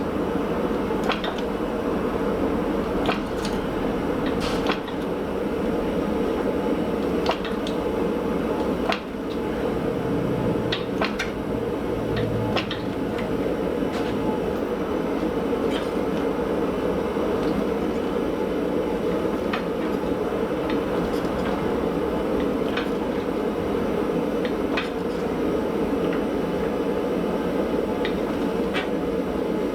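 A steady roaring hum of shop noise, like a forge burning, with scattered light metallic clicks and knocks every second or two.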